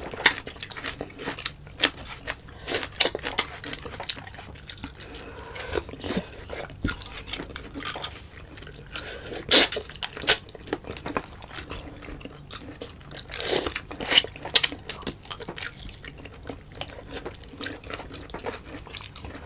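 Close-miked eating sounds: wet chewing and mouth clicks. Two louder sharp clicks come about ten seconds in, and a longer noisy sound follows a few seconds later.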